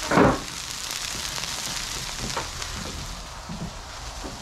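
Ground beef frying on a Blackstone gas griddle on full heat, a steady sizzling hiss. A brief loud sound comes right at the start.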